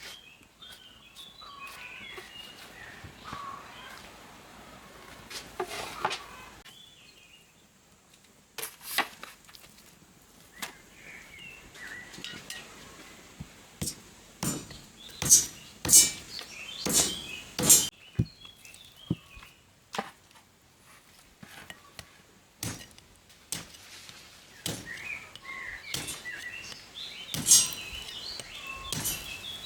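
Small birds chirping, with irregular sharp knocks and snaps, thickest about halfway through and again near the end.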